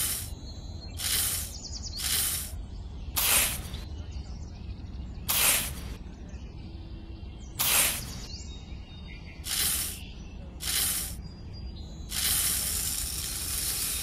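About eight short hisses, each about half a second long and spaced unevenly a second or two apart, then one longer hiss of about two seconds near the end, over a steady low rumble.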